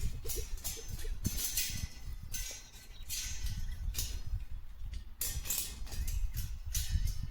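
Wire fence panel being handled: metallic rattling and clinking in uneven bursts, over a low rumble.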